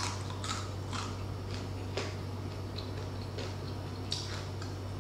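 Crunching as a mouthful of crispy pata (deep-fried pork leg with crackling skin) is chewed: irregular short crisp crackles, about two a second, over a steady low hum.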